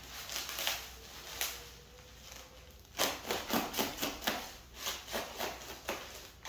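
Packing material and the box being handled while the engine is unpacked: quiet rustling at first, then a run of rustles and scrapes from about three seconds in.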